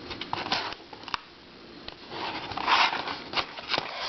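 Plastic twisty puzzles being handled: scattered sharp clicks and knocks, with a spell of rustling about two seconds in.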